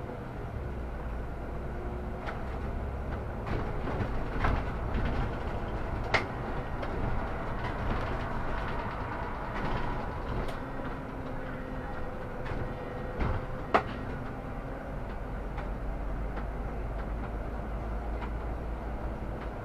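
Solaris Urbino 18 articulated city bus under way, heard from inside: a steady low rumble of the drivetrain and tyres with body rattles and a few sharp knocks, the loudest about 14 seconds in.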